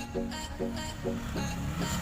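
Background music with a steady beat and a quick repeating melody.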